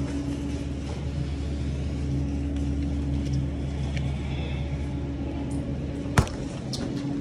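Car running down the road, heard from inside the cabin: a steady low engine and road rumble with a held hum, and one sharp click about six seconds in.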